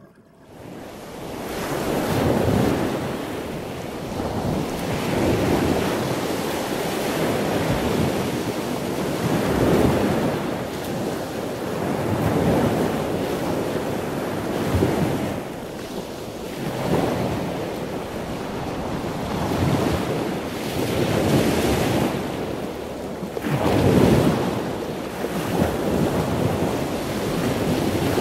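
Sea waves washing and breaking, with wind buffeting the microphone, the noise swelling and ebbing every few seconds.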